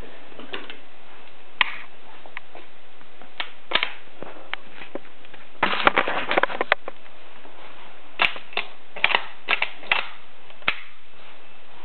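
Scattered handling clicks and light knocks as a rifle is picked up and the camera is moved, over a steady hiss. A rapid cluster of rattling clicks comes about six seconds in, and more single knocks follow around nine to ten seconds.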